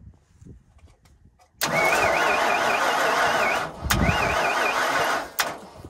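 Natural-gas irrigation well engine cranked by its electric starter in two bursts without firing, a wavering whine rising and falling about four times a second. The engine will not start because its natural gas supply is shut off.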